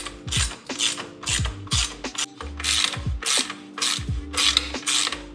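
Ratchet wrench clicking in quick, regular strokes as the crash cage mounting bolts are tightened. Background music with deep bass notes plays under it.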